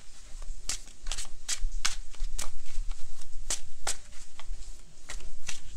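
Tarot cards being shuffled by hand: a run of crisp, irregular card slaps, a few a second.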